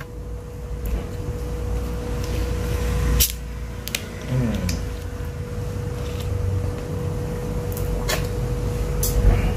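A steady mid-pitched hum under a low rumble, with a few sharp clicks scattered through, as of an object being handled close to the microphone.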